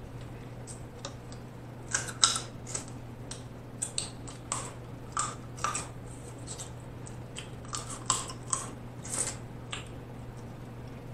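Close-miked eating of snow crab legs: a run of sharp cracks and clicks as shells are broken and picked apart by hand and meat is sucked off, starting about two seconds in and stopping shortly before the end. A steady low hum runs underneath.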